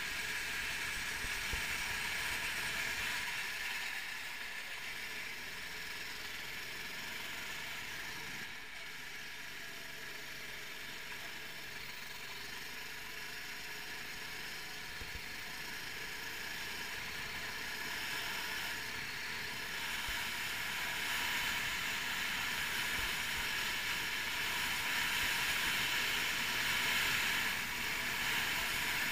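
390cc single-cylinder four-stroke kart engine running, heard from on board, with wind and tyre noise. It eases off for a few seconds in, stays lower through the slow bend, then builds up again toward the end on the straight.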